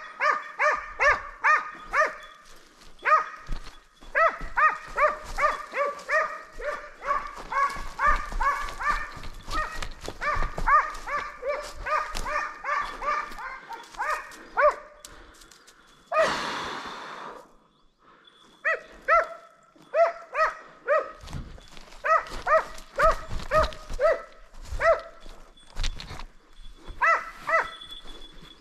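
Kopay hound baying in rapid, repeated barks, a dog giving voice on a hare's trail. About halfway through, a sudden noisy burst fades over about a second and the barking stops briefly, then the baying starts again.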